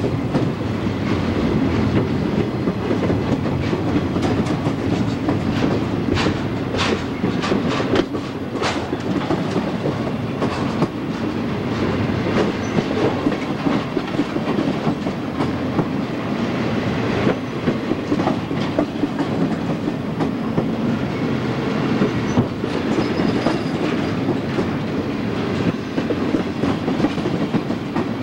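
Double-stack container train rolling past at close range: a steady rumble of steel wheels on rail, with clicking as the wheels cross rail joints and a run of sharper clicks about a quarter of the way in.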